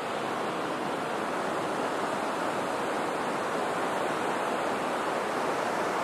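Surf from a rough sea, breaking waves heard as a steady, even rush of noise.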